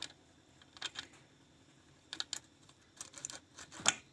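Small metal clicks and taps as bolts and washers are handled and set into a paddy reaper's metal gearbox cover. They come in short clusters about once a second, the loudest near the end.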